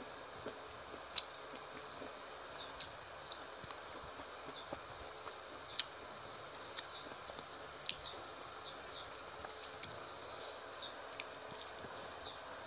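Close-miked eating by hand: irregular wet mouth clicks and smacks while chewing rice and greens, a few sharp ones a second or two apart, with soft sounds of fingers mixing rice on the plate.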